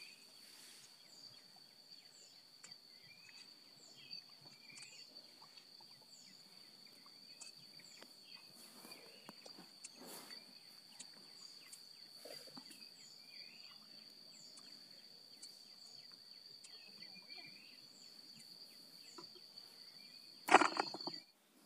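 Field ambience: a steady high-pitched insect drone with scattered short bird chirps. Near the end comes a loud brief noise, then the sound cuts off suddenly.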